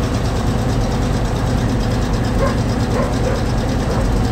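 Ural 375D truck's ZIL-375 V8 petrol engine idling steadily, warming up on its first run after winter.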